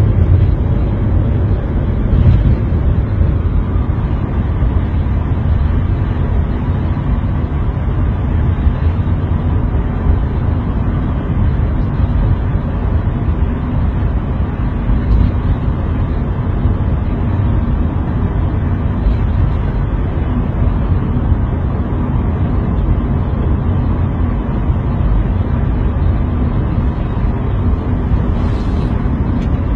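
Steady low rumble of a vehicle driving on the road, engine and road noise together.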